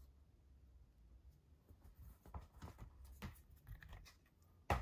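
Faint rustling and sliding of glossy cardboard album inserts being handled, with several short scrapes through the middle, then one sharp knock near the end.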